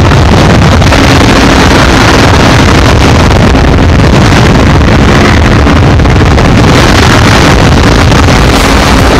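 Kawasaki Ninja 650's parallel-twin engine running steadily at about 140 km/h under heavy wind rush on the microphone.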